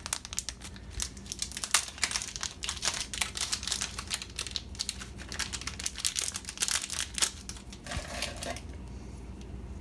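Packaging crinkling and rustling with small plastic clicks as a small cooling fan is unwrapped and handled. It stops near the end.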